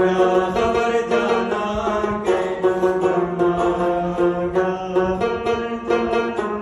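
Pashto folk song: a rubab plucked in quick, rhythmic strokes over a man singing long held notes.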